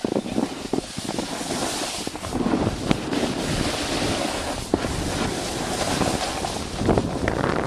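Rushing noise of skiing downhill: skis hissing and scraping over snow, with wind buffeting the microphone. A few sharp clicks stand out over the steady rush.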